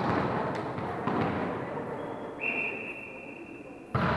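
A referee's whistle blows one steady note for about a second and a half, signalling the serve, in an echoing sports hall. A loud sharp hit of the volleyball follows near the end, with a few duller knocks in the first second.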